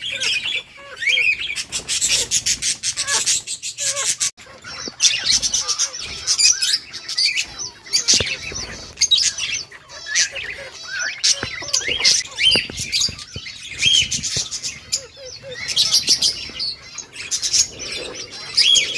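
Lovebirds in an aviary, peach-faced lovebirds among them, chirping and chattering. Many rapid high chirps overlap, with hardly a break.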